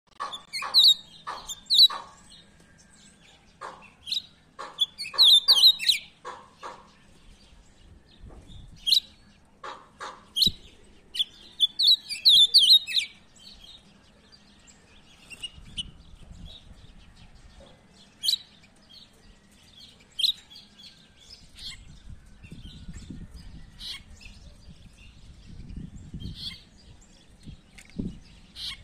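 Caged songbird calling: sharp single chirps and quick twittering runs in bursts, loud and frequent in the first half, then sparser and fainter.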